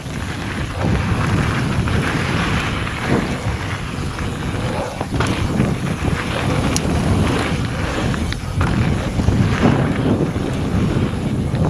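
Mountain bike riding fast down a dirt and gravel trail, with wind buffeting the action camera's microphone over the tyres rolling on the loose surface. Irregular knocks and rattles come as the bike goes over bumps.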